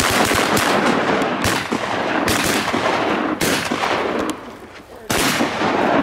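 Several hunters' shotguns firing a rapid, overlapping volley, the reports echoing into one another for about four seconds, then one more shot about five seconds in.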